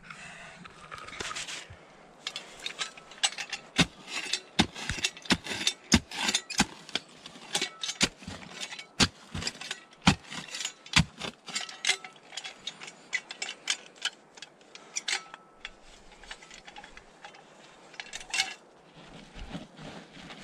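A hand digging tool striking and scraping into hard, stony ground: a run of irregular sharp strikes, often one or two a second, with scraping between them.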